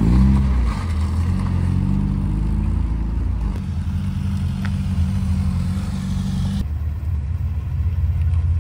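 First-generation Mazda MX-5 pulling away close by, its engine note rising as it accelerates and then running steadily. About two-thirds of the way through, the sound cuts to a different car engine running low and steady.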